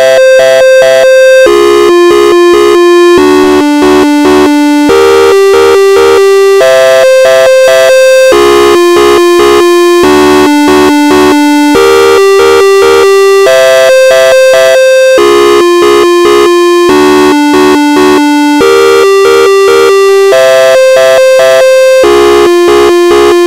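Monstro software synthesizer in LMMS playing a looped piano-roll melody, loud and rich in overtones. Long held notes alternate with runs of short detached notes, and the phrase repeats over and over.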